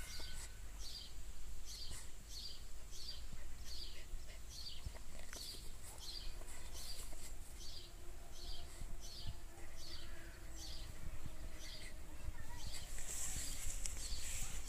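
Outdoor ambience with a short, high chirp repeating evenly about twice a second, over a steady low rumble. A brief hiss comes near the end.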